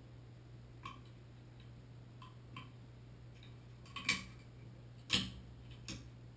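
Metal hand tools clicking and tapping against a Moen Posi-Temp shower valve as it is worked apart by hand: a few small scattered clicks, then two sharper knocks about four and five seconds in.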